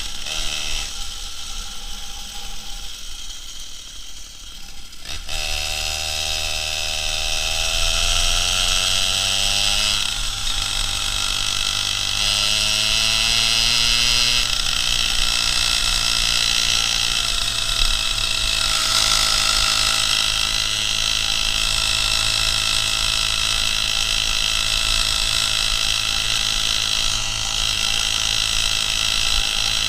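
Two-stroke chainsaw engine driving a homemade moped under way. It is quieter for the first five seconds, then revs up with a rising pitch and runs on at steady high revs.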